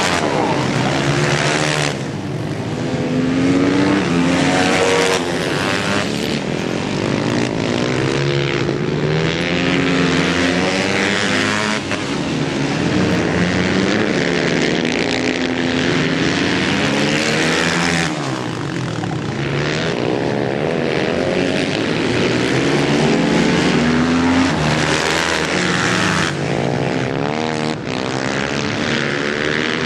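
Supermoto racing motorcycles on track, several engines overlapping, their pitch repeatedly rising and falling as the bikes rev up and drop back through the corners.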